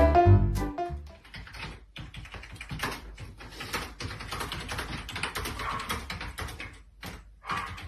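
Music cuts off about a second in, followed by a quick, irregular run of light clicks and taps.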